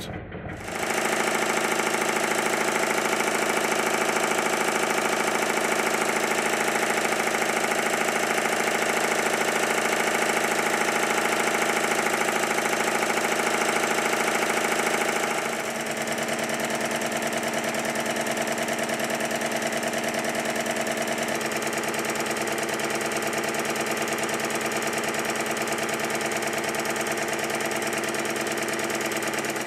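Stuart triple expansion model steam engine running steadily on compressed air, a fast even beat of exhaust and clattering motion work. About halfway through, the sound steps down a little in level and its pitch shifts slightly.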